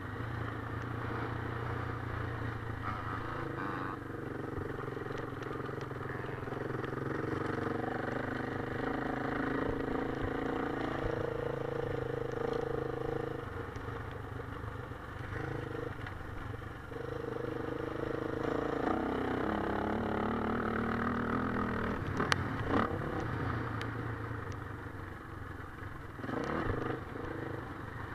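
Motocross bike engine running under load, its pitch rising and falling every few seconds as the rider works the throttle and gears round a dirt track. A few sharp knocks come a little over twenty seconds in.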